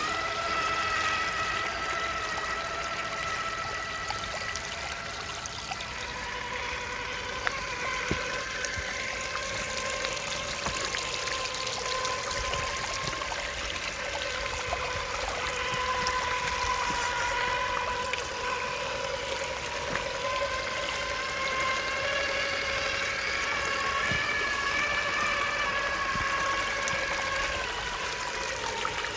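Traxxas TRX-4 RC crawler's electric motor and geared drivetrain whining steadily at low speed, the whine's pitch stepping down about six seconds in and shifting again near the end, over a steady rushing noise like running water.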